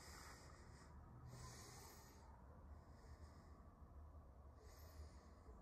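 Near silence: a faint steady low hum with four soft breaths, about one every second and a half, close to the microphone.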